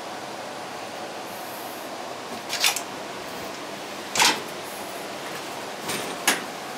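A metal equipment-rack door being opened and handled: three sharp metallic clicks and knocks of its latch and panel, the loudest about four seconds in, over a steady background hiss.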